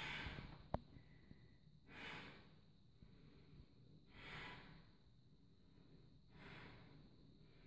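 Faint heavy breathing of a person catching her breath between burpees, a slow breath about every two seconds. A single short click sounds under a second in.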